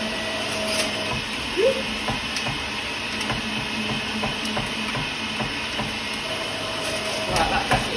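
Centrifugal juicer's electric motor running steadily with a constant hum while leafy greens are fed through it, with a few faint clicks.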